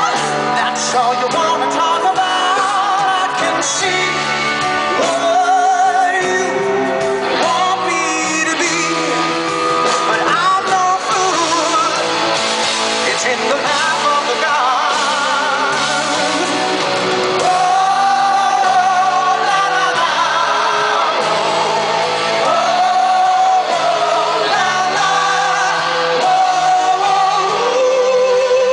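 Live rock band playing with a male lead singer holding long, wavering sung notes over drums and electric guitar, heard from the audience in a large arena.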